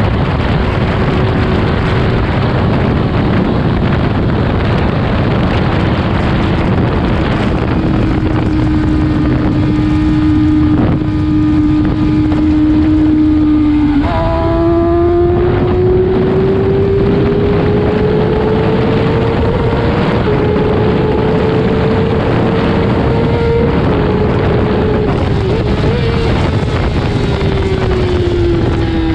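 Kawasaki ZX-6R inline-four engine running at speed under heavy wind noise. Its note holds steady, jumps abruptly about halfway through, climbs slowly for several seconds, then falls away near the end.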